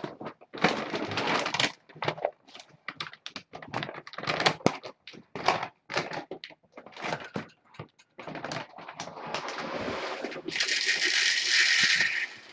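Kittens scrambling and playing on a rug and cardboard scratchers: irregular scratchy rustles, scuffs and crackles, with a louder, steadier rustle near the end as kittens come right up to the camera.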